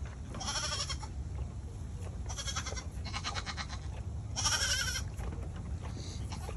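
Goats bleating: four short, wavering bleats in a few seconds, with a fainter one near the end.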